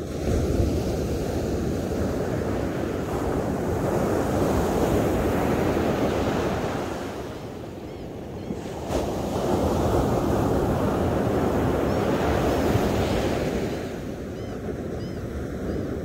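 Ocean waves breaking and washing up a sandy beach in two long surges. The second surge comes about nine seconds in, after a short lull, and the wash is quieter near the end.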